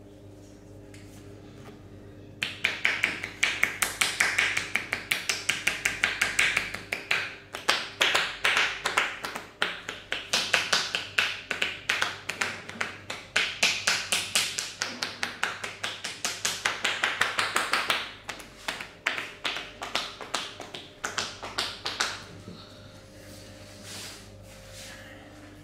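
Rapid percussive massage: hands slapping and chopping on the body in a fast, even rhythm of many strikes a second. It starts about two seconds in, goes softer after about eighteen seconds, and dies away a few seconds later.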